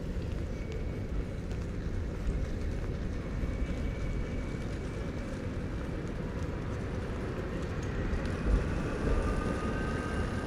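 Rail vehicle rumbling by, with a faint high whine of wheels or motor coming in over the second half.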